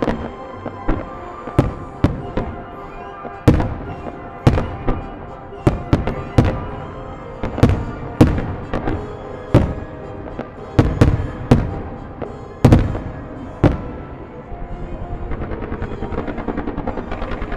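Fireworks shells bursting in a rapid, irregular series of sharp bangs, often one or two a second and sometimes in quick clusters. Near the end they give way to a fast, even string of smaller pops, several a second.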